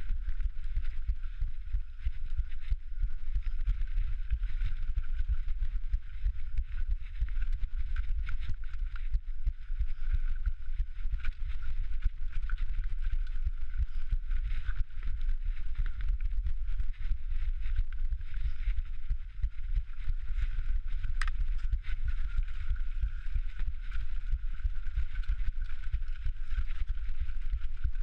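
Mountain bike rolling down a rocky trail, recorded on the bike or rider: a continuous jittery rumble with scattered sharp clicks and rattles as it goes over rocks.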